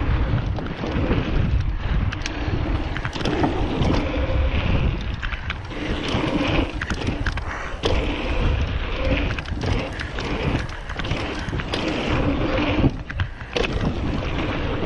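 Nukeproof mountain bike rolling fast over hardpacked dirt and gravel: steady tyre roar with wind buffeting the helmet or chest camera's microphone, and frequent short knocks and rattles from the bike.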